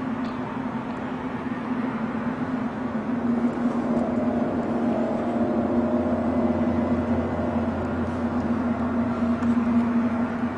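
A steady low hum with a droning tone, like the unexplained 'strange sounds' recorded worldwide in 2012. A second, higher droning note joins about four seconds in, and a deeper rumble swells from about six to nine seconds in.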